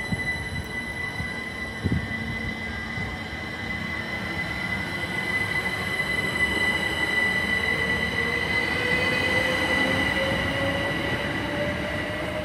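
GWR Class 387 electric multiple unit pulling away from the platform: a steady high-pitched electric whine and the rumble of wheels on rail, with a lower whine that climbs slowly in pitch through the second half as the train picks up speed.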